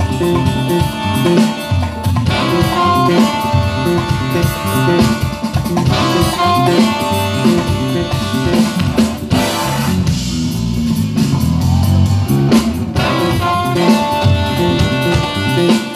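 Live jazz band playing an instrumental, with electric bass and drum kit under a repeating higher melodic figure.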